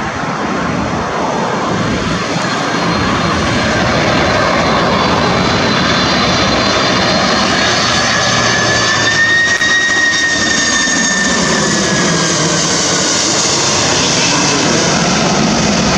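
Twin-engine Boeing 767 jetliner passing close by, its turbofan engines building to a loud steady roar with a high whine that rises slightly and then slides down in pitch about ten seconds in.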